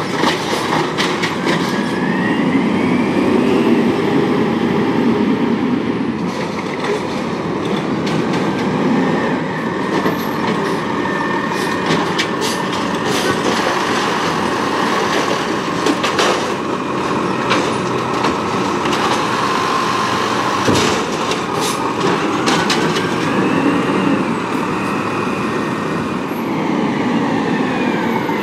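Peterbilt 320 automated side-loader garbage truck with an Amrep body working the curb: the diesel engine runs under load while the hydraulics whine, rising and falling twice as the arm cycles. Scattered metallic clanks and bangs come in the middle stretch as carts are gripped, shaken and dumped into the hopper.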